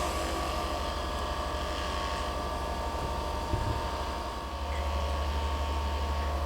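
Electric massage device running with a rapid low pulsing, which turns steadier and slightly louder about four and a half seconds in. A brief knock comes about three and a half seconds in.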